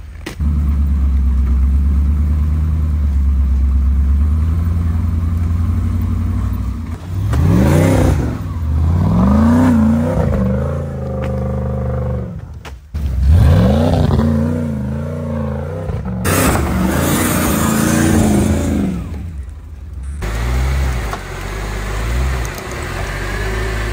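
Off-road Jeep engines running in snow: a steady low idle at first, then engines revving hard in repeated rises and falls, broken by sudden cuts from one clip to the next.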